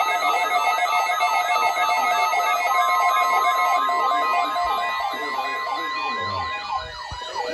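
Several electronic sirens wailing at once, their quick rising-and-falling sweeps overlapping at different pitches over steady alarm tones. A steady tone near 1 kHz joins about three seconds in and stops about a second before the end.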